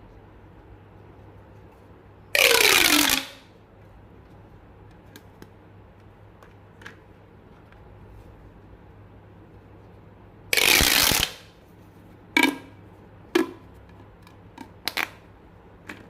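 Popping sounds: two loud bursts of noise, each just under a second long, about eight seconds apart, the first with a falling tone inside it, then four or five short, sharp pops near the end.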